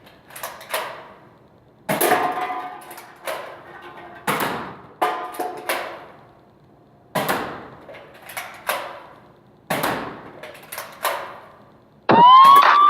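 Nerf Strongarm dart blaster being primed and fired again and again, about a dozen sharp clacks and knocks, with darts striking drink cans; a few hits ring briefly like struck metal. Near the end a siren starts, louder than the shots.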